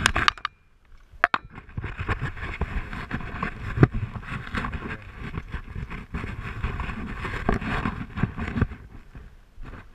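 Rustling and scraping against a body-worn camera's microphone, mixed with footsteps crunching on a dry, dusty dirt trail, with sharp knocks about a second in and near four seconds in. It goes quieter shortly before the end.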